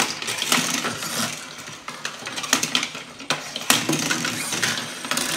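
Toy cars being pushed, set down and knocked together on a tabletop inside a derby-arena playset: irregular light clicks and clatters.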